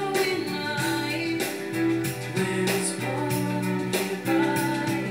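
A recorded Christmas song playing: a voice singing over instrumental accompaniment, an old song.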